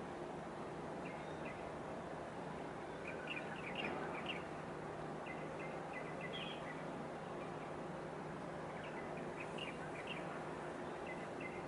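Small birds chirping in short, scattered calls over a steady outdoor background noise with a constant low hum.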